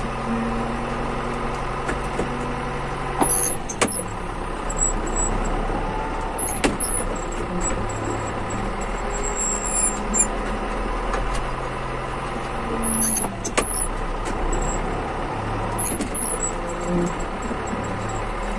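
Farm tractor engine running steadily while driving across a field, heard from the driver's seat, its pitch shifting now and then with a few sharp knocks and rattles.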